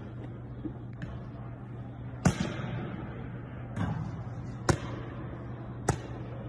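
Basketball hitting the rim and bouncing on a hardwood gym floor: five sharp thuds spaced about a second apart, the loudest about two seconds in, over a steady low hum.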